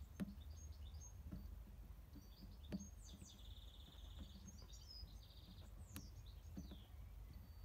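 Faint buzz of a continuity tester, for about a second starting about three seconds in and briefly again a little later, as its probe touches the partly stripped wire: the tester is buzzing through, confirming the wire is the reverse-light feed.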